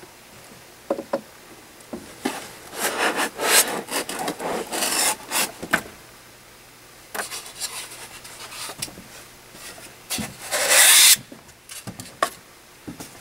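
Long cardboard box being opened and unpacked by hand: irregular scraping and rasping of cardboard and packing material, with the loudest, longest rasp about ten seconds in.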